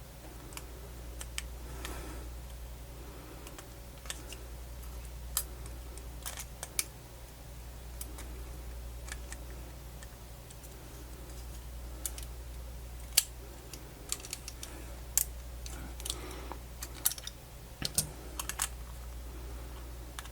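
Scattered light clicks and taps of the small casing parts and plate of a Sony MZ-NH700 portable MiniDisc player being handled and fitted together during reassembly, over a steady low hum.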